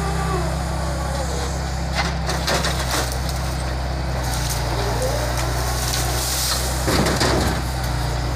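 Grapple truck's diesel engine running steadily as its hydraulic grapple works, with sharp cracks of wood about two and three seconds in and a louder crunch near the end as the grapple grips and breaks logs and branches.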